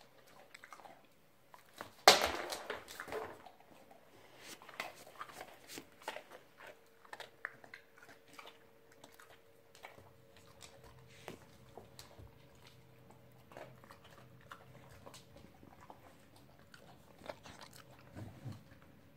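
Dog crunching and chewing dog biscuits, with the loudest crunching about two seconds in, then scattered quieter crunches and clicks.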